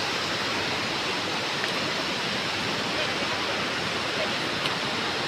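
Waterfall rushing steadily, with water pouring over only one side of the fall while the rest is shut off.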